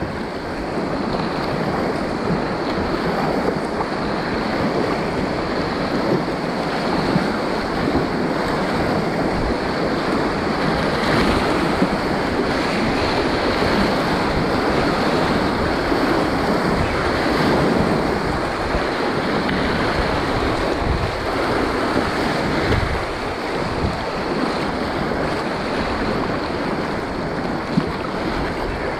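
Whitewater rapids rushing and churning around a kayak in a steady wash of noise, with wind on the microphone adding an uneven low rumble.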